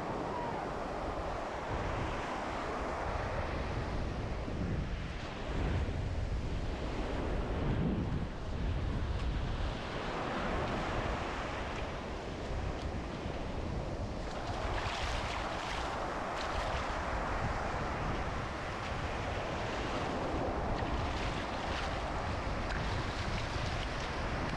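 Strong wind buffeting the microphone over the wash of breaking surf, swelling and easing in gusts.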